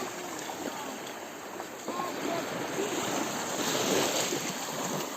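Sea water sloshing and lapping.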